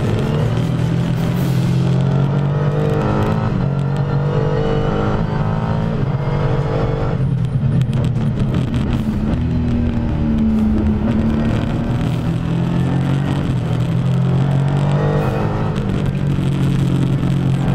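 Renault RS01 race car's twin-turbo V6 heard onboard at speed, its note climbing, breaking off sharply about seven seconds in, then climbing again near the end.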